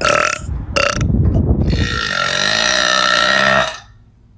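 A woman burping loudly: two short belches, then one long drawn-out belch lasting nearly two seconds.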